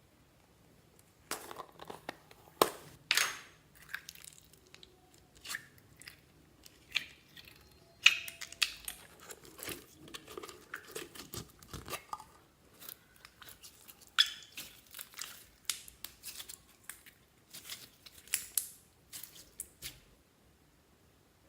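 Slime being squeezed, stretched and poked by hand, giving irregular sticky crackles, pops and squelches. They start about a second in and stop shortly before the end.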